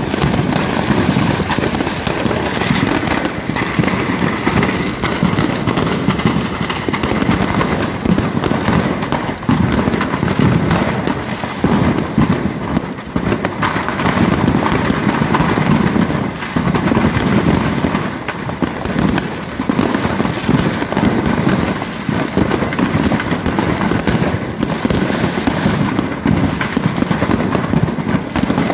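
Fireworks going off nonstop from a large fire: dense, overlapping bangs and crackling that never let up.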